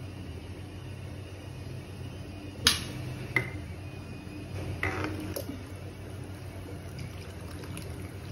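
A steel ladle knocking and clinking against a steel kadai while stirring liquid rasam: one sharp knock about two and a half seconds in, a second a moment later, then a few ringing clinks around five seconds in, over a steady low hum.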